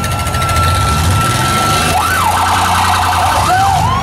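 Electronic siren holding a steady tone, then about two seconds in breaking into a rising-and-falling wail and a fast warble, over the low rumble of idling engines.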